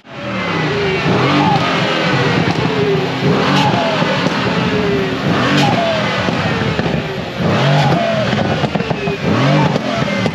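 Mercedes-AMG C63's turbocharged engine revved in repeated blips about every two seconds. As each rev drops, its EP Performance diverter valves vent with a falling turbo whistle.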